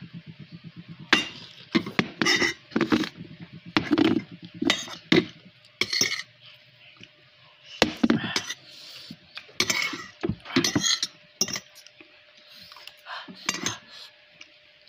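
Metal spoon and fork clinking and scraping against a ceramic bowl as noodles are stirred and scooped, in a run of irregular short clinks.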